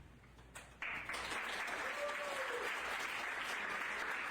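Congregation applauding, starting suddenly about a second in and carrying on steadily, with a brief voice calling out over it.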